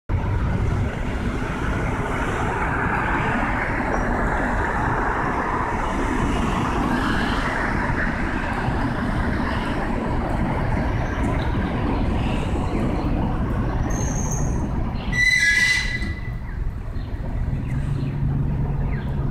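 City street traffic noise, a steady rumble of passing vehicles. A brief high-pitched tone sounds about fifteen seconds in.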